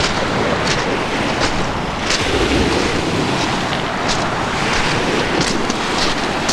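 Surf washing onto a sand beach, with wind buffeting the microphone.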